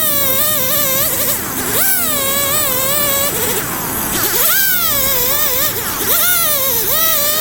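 A loud, buzzy pitched sound in repeated phrases. Each phrase swoops up sharply and then wavers, about one every two seconds.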